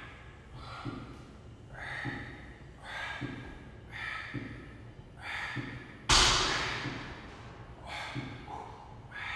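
A man breathing hard in rhythm with weight-machine repetitions, a forceful noisy breath about once a second. About six seconds in comes one much louder, sudden burst that trails off over about a second.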